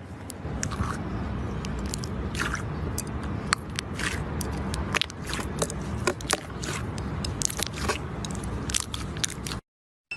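Slime being squished and worked by hand, with many small crackling pops and clicks over a steady low squelch. It cuts off abruptly just before the end.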